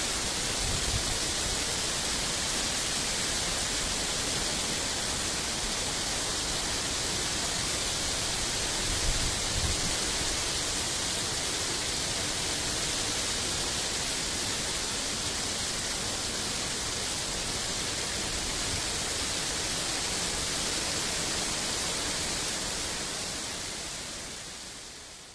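Heavy rain falling steadily, a dense even hiss that fades out near the end.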